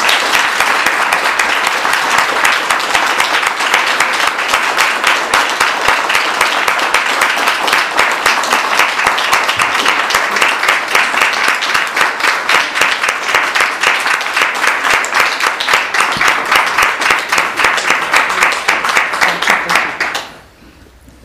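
Audience applauding: dense, steady clapping from a roomful of people that dies away quickly near the end.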